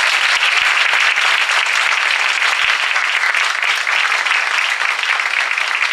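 Audience applauding: a dense, steady round of clapping from a room full of people.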